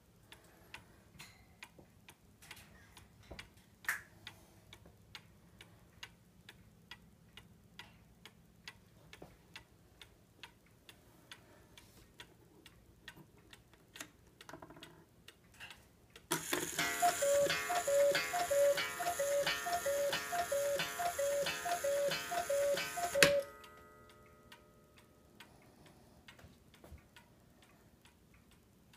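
Mechanical cuckoo clock ticking steadily. Past the middle its cuckoo calls about a dozen times, two alternating pipe notes each time, over the rattle of the striking mechanism. It stops with a sharp click that leaves a brief fading ring.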